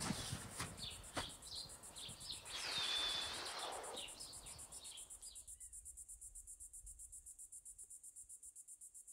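Faint crickets chirping in a rapid, even high-pitched pulse that slowly fades. For the first five and a half seconds, scattered clicks, short bird-like chirps and a brief whistle-like tone sound over a soft hiss, then stop.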